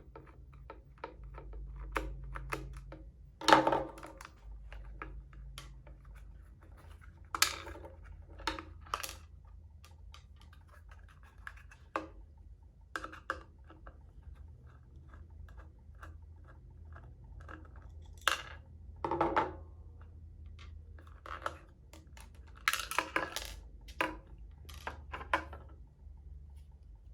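Scattered plastic clicks, knocks and scraping as a MALICE Clip is worked loose and pulled free of a rigid case, with a few louder knocks over a faint steady hum.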